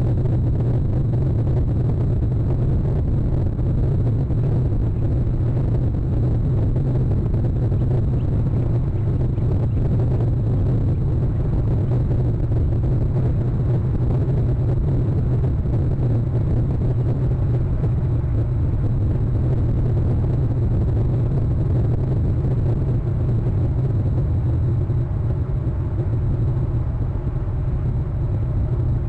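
Steady low rumble of background noise, with faint thin high tones above it.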